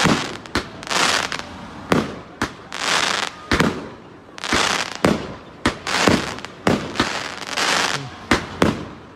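Aerial fireworks going off in quick succession: sharp bangs of bursting shells mixed with half-second bursts of crackling, about one a second.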